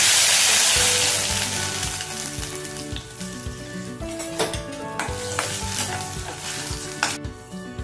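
Onion-tomato paste sizzling in hot sesame oil in a stainless steel kadai, loud at first and dying down over the first couple of seconds. A spoon then stirs the paste, with a few sharp clicks against the pan.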